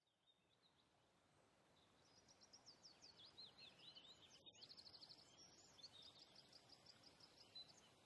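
Faint forest ambience fading in from silence, with a small songbird singing rapid high trills, phrase after phrase, from about two seconds in.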